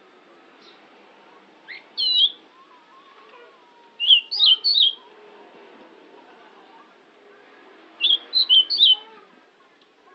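Pied bushchat singing: three short phrases of quick, high whistled notes, about two seconds in, four seconds in and eight seconds in.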